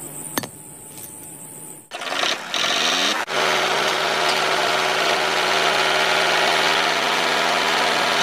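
A sharp click, then about two seconds in the small electric motors of a homemade toy tractor with a thresher attachment start up and run at a steady, high whirr.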